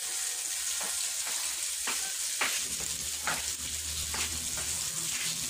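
Flour-coated meatballs shallow-frying in hot oil in a pan: a steady sizzle with occasional sharp pops spread through it.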